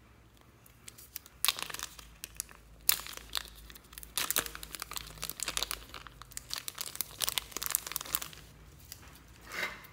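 Small plastic zip-lock bag crinkling loudly and irregularly as hands pull it open and work the slime out of it, starting about a second in and dying down near the end.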